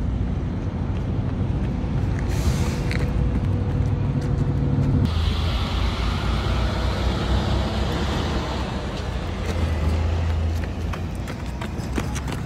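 Road traffic beside the course: heavy vehicle engines running with a steady low rumble and a brief hiss about two seconds in. The sound changes abruptly about five seconds in, and runners' footsteps patter on the pavement near the end.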